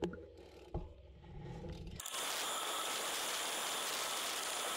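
Road bike rolling slowly with faint mechanical ticking. About two seconds in, this cuts suddenly to steady wind and road rush on the microphone as the bike rides faster.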